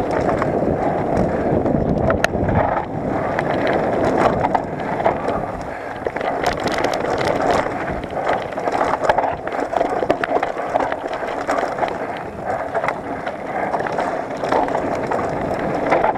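Mountain bike rolling down a dry, rocky dirt trail: steady crunch and rumble of the tyres on dirt and loose stones, with frequent rattles and clicks from the bike over the bumps.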